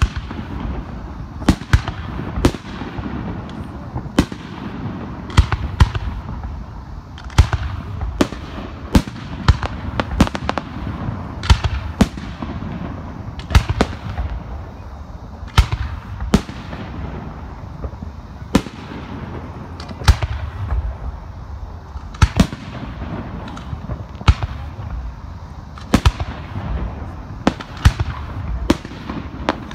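Aerial fireworks display: sharp bangs of shells bursting overhead, about one a second, over a continuous low rumble.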